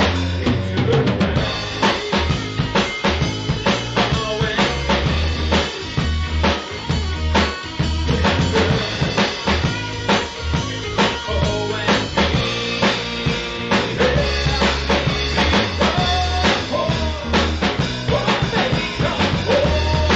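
Blues-rock band playing an instrumental stretch of a song without vocals: a drum kit with snare and bass drum keeps a steady beat under bass and other instruments.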